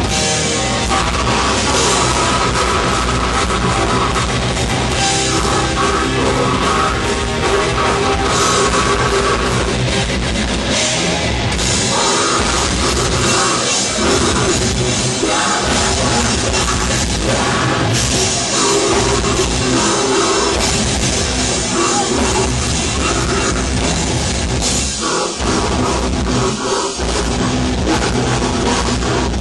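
A death metal band playing live: distorted guitars, bass and drum kit.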